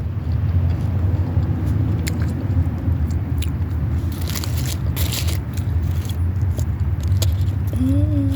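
Someone eating fast food: chewing and small mouth clicks, with a burst of rustling crackle about four to five seconds in, over a steady low rumble. A short hummed note near the end.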